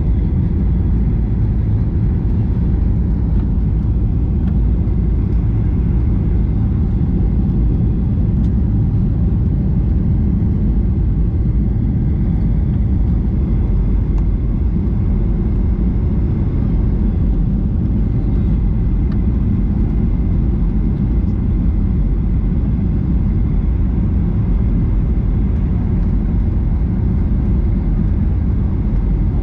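Steady low rumble of a Boeing 737-800's engines and rushing air, heard inside the economy cabin in flight, holding level with no changes.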